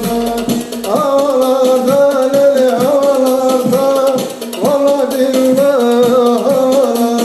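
Turkish folk music: a sliding, ornamented melody line with long held notes over a steady beat.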